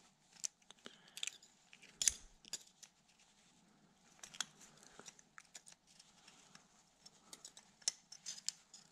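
Thin metal pick scraping and clicking against a piston and its lower piston ring, in irregular light clicks and scrapes, the sharpest about two seconds in. The ring is seized in its groove and is being worked loose.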